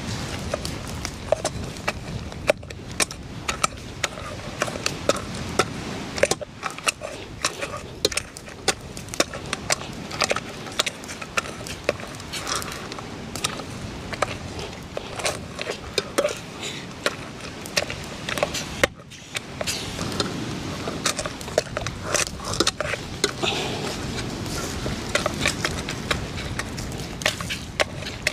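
A hand mixing and squeezing seasoned lionfish pieces in a metal pot: a dense, irregular run of small wet squishes, clicks and scrapes against the pot, pausing briefly twice.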